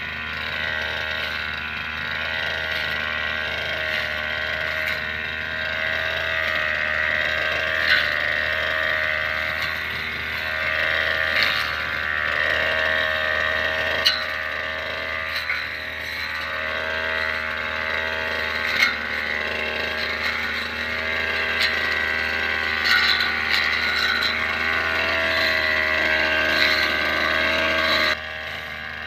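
Petrol brush cutter (grass trimmer) engine running steadily under load while cutting grass, its speed rising and falling a little, with a few sharp clicks along the way. It is quieter near the end.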